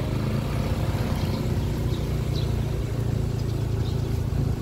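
Motorcycle engine running steadily at low revs, a continuous low drone.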